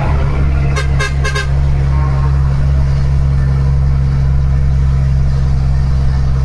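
Dump truck's diesel engine running with a steady, loud low drone. There are three quick horn toots about a second in.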